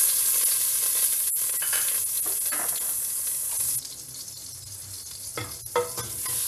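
Butter sizzling as it melts in hot olive oil; the sizzle quietens abruptly about four seconds in. A few light clicks come near the end.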